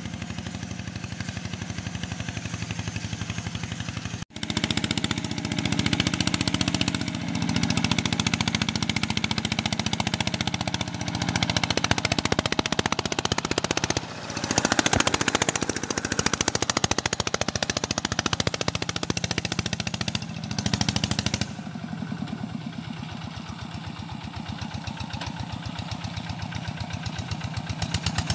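Single-cylinder diesel engine of a walk-behind two-wheel tractor running loud with a rapid, even exhaust beat while it plows, working under load. The sound cuts out briefly about four seconds in and shifts in tone a few times as the view changes.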